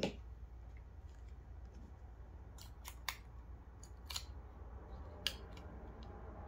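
A handful of small, sharp metal clicks and taps, spread out over several seconds: the blade of a Bauer 20V oscillating multi-tool being taken off and refitted on its quick-release blade mount.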